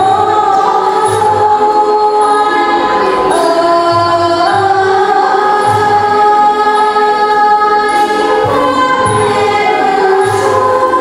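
Thai classical dance-drama music: a chorus sings a long, slowly gliding melody over a Thai classical ensemble, with a low drum beat about once a second and light, regular high strikes keeping time.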